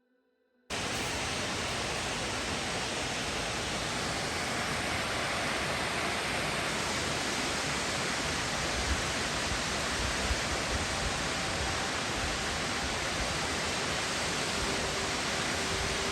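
Steady rush of fast-flowing creek water at a stream crossing. It cuts in abruptly about a second in.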